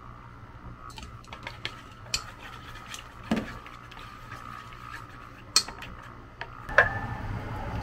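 Wooden chopsticks stirring beaten eggs and sliced cheese in a stainless steel bowl: a run of soft wet clicks and sharper taps against the metal, the last one near the end leaving the bowl briefly ringing. Near the end a steady rushing noise starts underneath.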